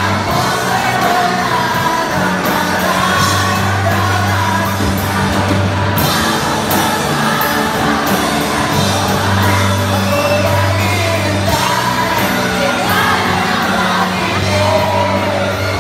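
A live band playing a song with a singer, in a large gymnasium, while a crowd shouts and whoops along.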